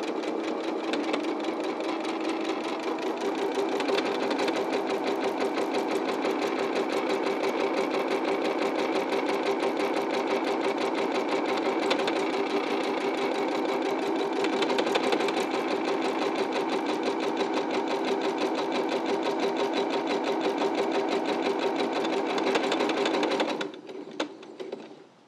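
EverSewn Sparrow 25 computerized sewing machine running steadily as it stitches a buttonhole with its one-step buttonhole foot. It stops near the end, and a few light clicks follow.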